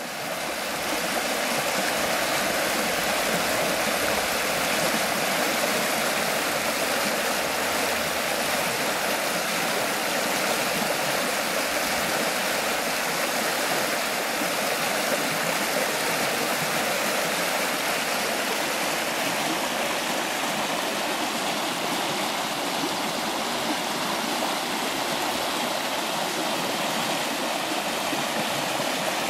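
Steady rush of flowing water, running evenly without a break.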